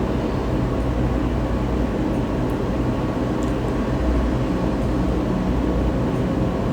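Steady low mechanical hum, with a few faint clicks about two and a half and three and a half seconds in.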